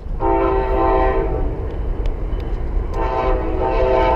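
A multi-tone train horn sounds two long blasts, a held chord of several notes each time, over a steady low rumble.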